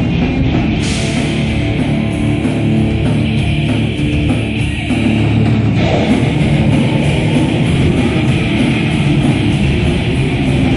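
Heavy metal band playing live: distorted electric guitar with bass and drums, loud and dense. The sound brightens about a second in and grows fuller a little after halfway.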